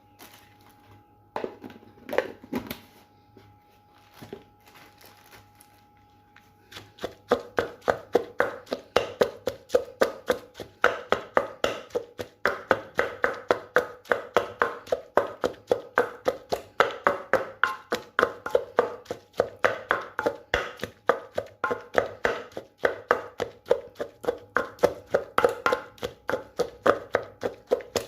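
Pestle pounding chilies in a mortar, first a few scattered knocks and then, from about seven seconds in, a steady rhythm of about three strokes a second.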